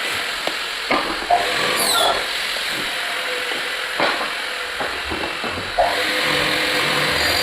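Several short, sharp knocks over a steady hiss, from work fitting wooden skirting boards.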